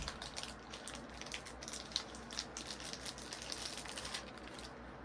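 Irregular small clicks and light rattling from a 3rd-generation iPod being handled, stopping about four seconds in.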